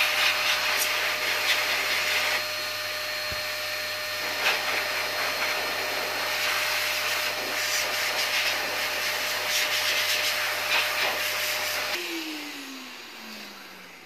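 Eureka Forbes Super Clean handheld vacuum cleaner running in blower mode through a narrow nozzle, a steady rush of air with a motor whine, blowing fine dust out of its cloth filter. About twelve seconds in it is switched off and the motor winds down with a falling whine.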